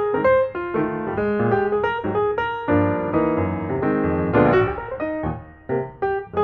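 Background music played on piano: a run of separate notes and chords, with a brief pause a little after five seconds.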